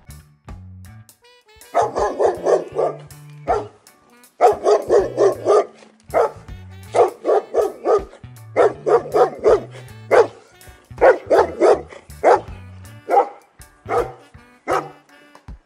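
A dog barking in repeated bursts of several quick barks each, with short pauses between the bursts, over background music with a low, steady bass.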